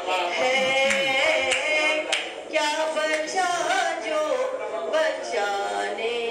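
A woman singing Urdu verse in tarannum, the melodic chant of mushaira poetry recitation, amplified through a microphone. She sings long held notes that slide up and down in pitch.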